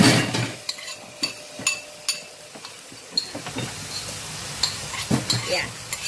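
Minced mutton being scraped off a bowl with a metal spoon into a hot frying pan. There is a loud sizzle right at the start, then sharp clinks of the spoon against the bowl and pan over a steady frying sizzle.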